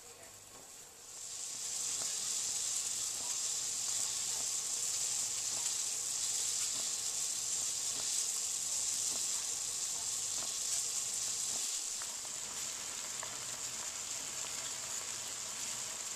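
Saucepan of water boiling over a lit gas burner with two eggs in it: a steady hissing sizzle that starts about a second in, with a few faint ticks.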